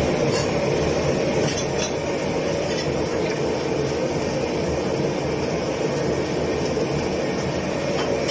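Steady noise of a gas wok burner running under a wok of boiling water. A few light metal clinks of utensils against the wok and bowl come in now and then.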